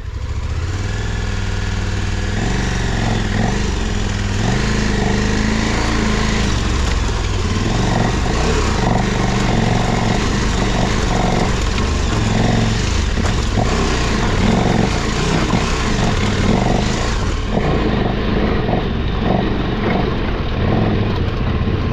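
Adventure motorcycle engine running hard and labouring under varying throttle as it climbs a steep rocky trail, with rocks and gravel knocking and clattering under the tyres.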